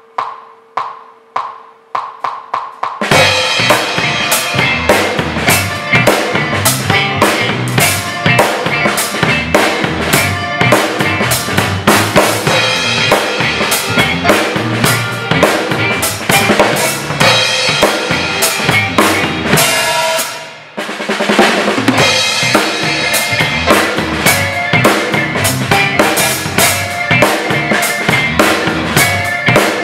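A drum kit played with sticks along to a backing track. It opens with a short count-in of evenly spaced clicks, and after about three seconds the full groove starts, with kick, snare and cymbals. About 20 seconds in the music drops out for a moment, then comes back in.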